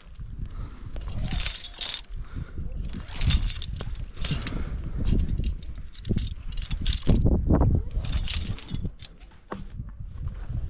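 Metal climbing gear, carabiners and quickdraws on a harness, clinking and jangling in repeated bursts as the rope is handled, over an uneven low rumble.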